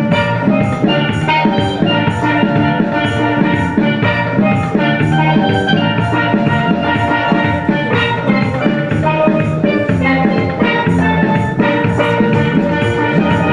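Steel band playing an upbeat tune: steel pans ring out quick runs of struck notes over a steady drum beat.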